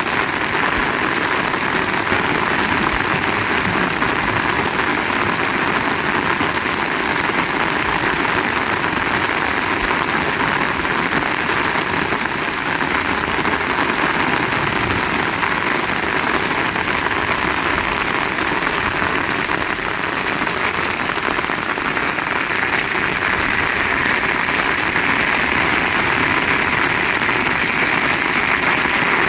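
Heavy rain pouring down steadily, a dense, even rushing hiss without letup.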